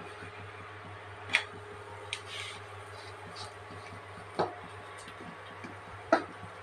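Steel kitchenware being handled: four short, sharp clinks and knocks of steel plates and bowls, spread out, the loudest near the end, over a steady low hum.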